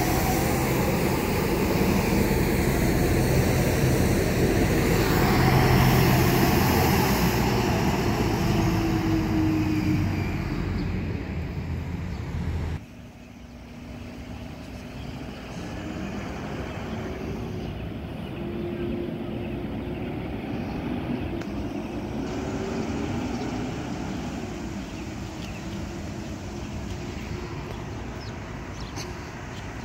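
Diesel garbage truck engine running close by, with the engine pitch gliding down about ten seconds in. About thirteen seconds in the sound drops suddenly to a quieter, more distant truck engine and street traffic.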